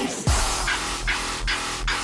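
Electronic music with a heavy beat; a deep bass note sweeps downward about a quarter second in.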